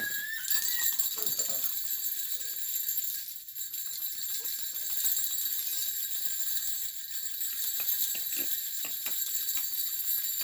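Baby's ghughro, a small jingle-bell rattle, shaken continuously with a steady high metallic jingling.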